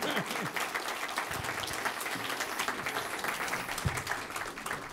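Audience applauding: dense, steady clapping from a large crowd that fades away near the end.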